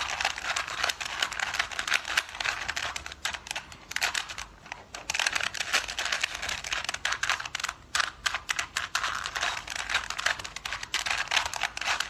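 Rubik's cube being turned quickly by hand: a rapid run of plastic clicks and clacks as its layers rotate through a solving algorithm, with brief pauses about four and a half and eight seconds in.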